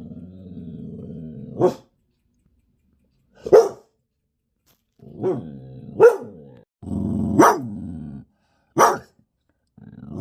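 Dog growling in long low stretches that break into short, sharp barks, six of them spaced a second or two apart, with brief silences between.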